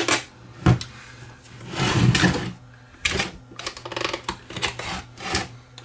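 Metal battery clamp on an old General Electric portable radio being pried with a tool and released: sharp metallic clicks, a scrape about two seconds in, and clatter as the heavy radio case is shifted and turned on the workbench.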